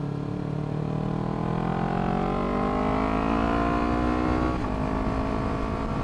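Kawasaki Ninja 300's parallel-twin engine through a Yoshimura exhaust, accelerating with a steadily rising note. About four and a half seconds in the note breaks briefly and drops in pitch as the bike upshifts, then carries on. It has a rich exhaust tone.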